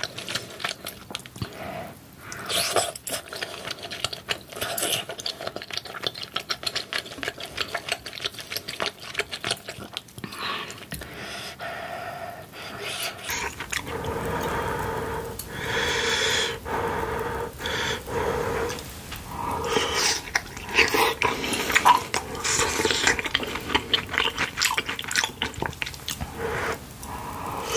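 Close-miked mouth sounds of eating soft dumplings and rice cakes in broth: wet chewing, smacking and slurping, with a wooden spoon clicking against the bowl. About halfway in, a pitched whine-like sound begins and keeps coming and going.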